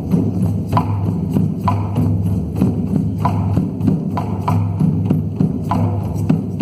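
Hand drum beaten in a slow, steady rhythm, about one stroke a second, over a continuous low drone.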